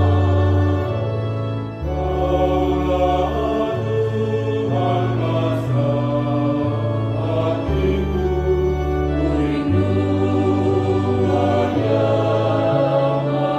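Choir singing a slow song in several parts, over held low bass notes that step to a new pitch every second or two.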